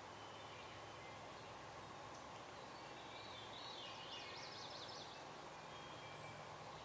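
Faint songbirds singing over a steady low background hum, with a quick up-and-down warbling trill about four seconds in.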